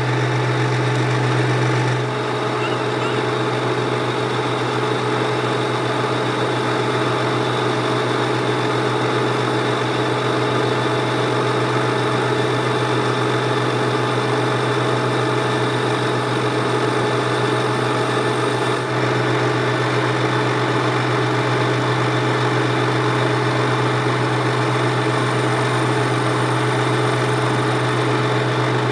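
Workshop machine running steadily: a constant low hum with several steady higher tones over an even mechanical noise, most likely a lathe turning.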